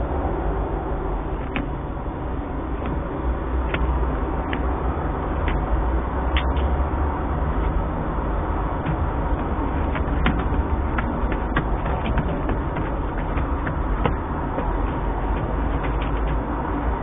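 Steady low rumble and hiss of background noise, with scattered faint clicks throughout.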